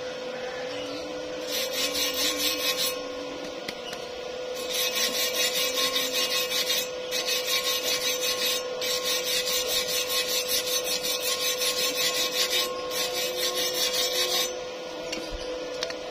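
A steel hand tool scraped rapidly back and forth over a fresh weld bead on a steel tube, at about three to four strokes a second. It comes in runs: a short one about a second and a half in, then a longer stretch with brief pauses that stops shortly before the end.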